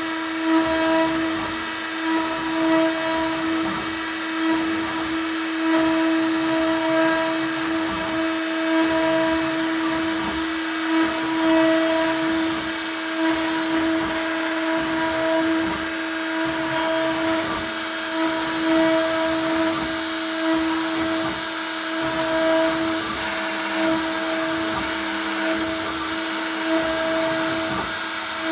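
CNC router spindle running with a steady high whine while the bit carves wood, the cutting noise rising and falling as the bit moves through the work.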